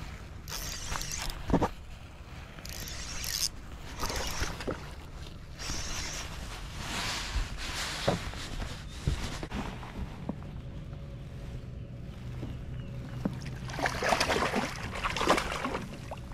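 Scraping and clicking of a spinning rod and reel being worked while a hooked bass is fought to the boat. Near the end the bass thrashes and splashes at the surface beside the hull.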